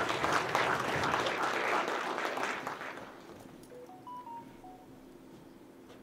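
Audience applauding, dying away after about three seconds. Then a short run of about five electronic beeps at different pitches, like a little melody.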